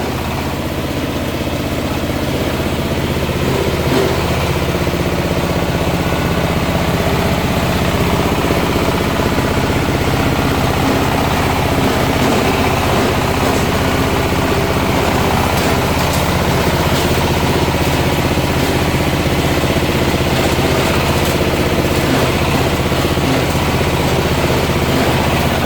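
Type 60 coconut coir grinding machine running steadily with a 12 mm screen fitted, its drive and crusher blades giving a constant low mechanical hum as coconut husk is ground into cocopeat.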